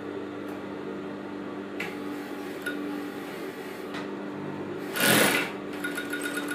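Juki sewing machine's motor running with a steady hum, driving the table-mounted bobbin winder as a bobbin fills with thread. A few light clicks, and a brief louder rush of noise about five seconds in.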